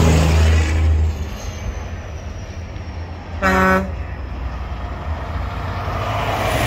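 Big-rig semi trucks passing in a convoy, a deep engine rumble fading after about a second. One short truck horn blast sounds about halfway through, over steady traffic noise.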